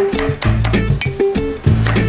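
Background music: plucked guitar notes over a bass line, with regular percussive strokes.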